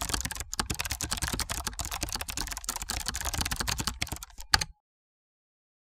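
Fast typing on a computer keyboard, a dense run of key clicks ending in one louder key press about four and a half seconds in, then the sound cuts off.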